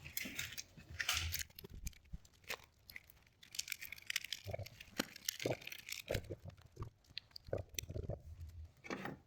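Irregular rustling, crinkling and small clicks of hands handling and routing electrical wiring under a vehicle.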